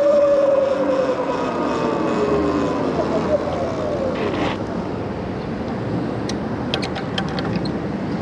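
Electric bike motor whining, its pitch falling steadily over the first few seconds as the bike slows, over wind and tyre noise. A few light clicks come near the end.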